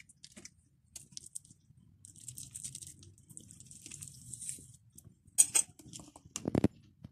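Stainless steel knife and fork cutting into steamed chicken on a china plate: soft scraping and scattered light clicks, then a couple of sharp clinks of metal on crockery near the end.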